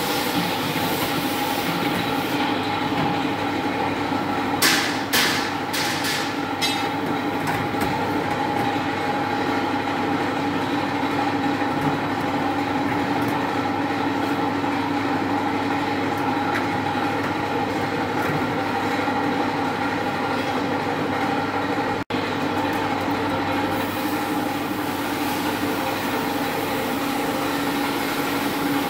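Steady machine hum with several fixed tones, like an electric motor running. A few short metal clatters come about five to seven seconds in, as the oven's steel trays are handled.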